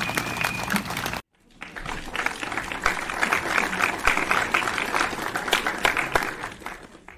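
A crowd applauding. The applause cuts off abruptly about a second in, then comes back and fades out near the end.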